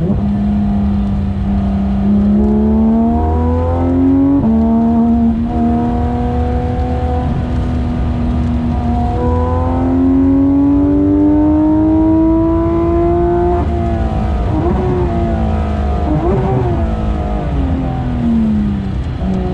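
Porsche 991.2 GT3 RS's 4.0-litre flat-six engine pulling hard on track: the revs climb, drop sharply at an upshift about four seconds in, then rise through a long pull. After about fourteen seconds they fall in uneven steps, as under braking with downshifts.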